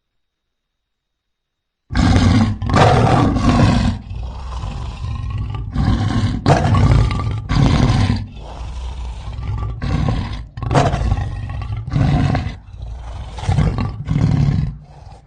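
Big cat roaring, offered as an American lion: after about two seconds of silence, a long bout of loud, deep roars and grunts follows, each under a second long with short breaks between them.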